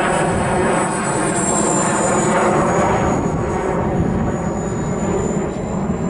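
Twin 64mm electric ducted fans of an E-flite A-10 model jet in flight: a high whine over a rushing sound, the whine dropping in pitch about two seconds in and then holding steady.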